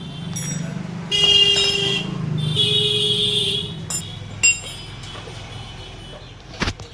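Two passing vehicle horn honks, each about a second long, over a steady low hum, with a sharp knock near the end.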